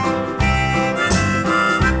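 Background music: harmonica over acoustic guitar with a steady, bouncy beat, country-blues style.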